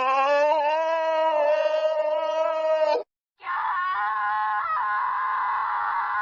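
Two long, held screams one after the other, each about three seconds with a brief silence between; the second is higher-pitched and wavers slightly.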